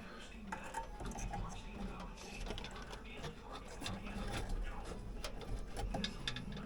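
Irregular small clicks and rustling of wires and parts being handled and routed inside an air handler cabinet.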